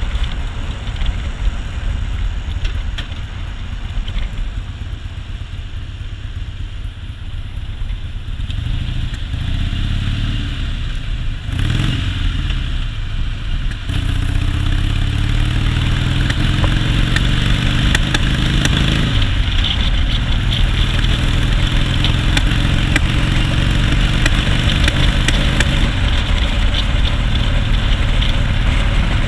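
2001 Harley-Davidson Softail's V-twin engine accelerating on the road: the pitch rises about eight seconds in, breaks at a gear change near twelve seconds, climbs again, then settles into a steady cruise from about nineteen seconds.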